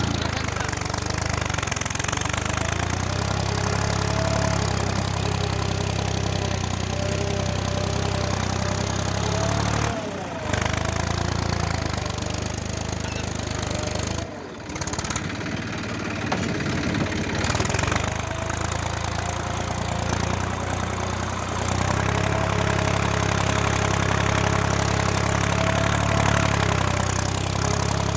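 Tractor engine running steadily while pulling a plough, with two very short breaks in the sound partway through.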